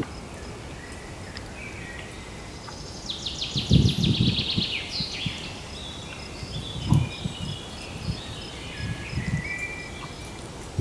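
Songbird singing: a fast trill of rapid notes about three seconds in, followed by warbled phrases, over a faint evenly repeated high chirp. A few soft low thumps or rustles, the loudest about four and seven seconds in.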